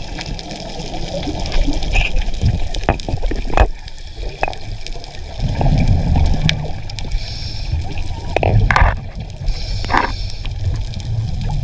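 Underwater sound from a scuba dive: bubbling and gurgling water over a steady low rumble, with scattered sharp clicks and a few short bursts of hiss.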